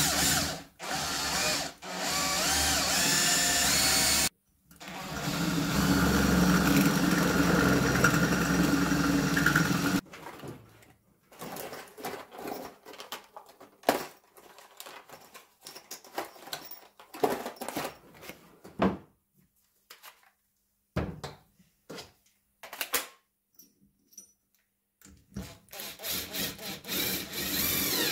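Electric drill running in two long bursts, drilling holes in a blanking plate for a homemade puller, followed by scattered short clicks and knocks of tools and parts being handled.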